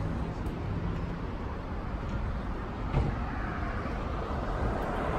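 Steady car and traffic noise, a low rumble with a hiss over it, and a single short click about three seconds in.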